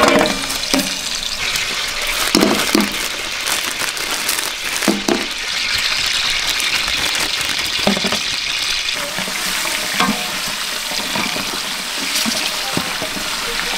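Ginger-garlic paste cubes sizzling in hot oil in a large metal cooking pot, with a steady hiss and a wooden spoon stirring and knocking against the pot every couple of seconds.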